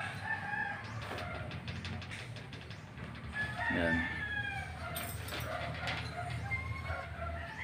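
Chickens clucking in the background, with a rooster crowing once about three and a half seconds in, its call falling in pitch at the end.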